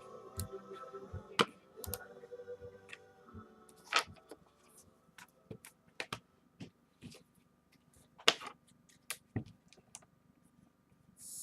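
Scattered, irregular clicks of a computer keyboard and mouse, a few a second at most, with gaps between them.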